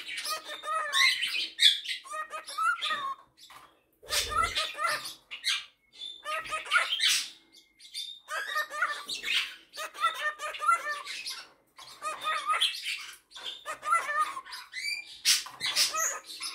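Male cockatiel chattering and warbling in quick, pitch-bending phrases with short pauses between them. A brief low thud comes about four seconds in.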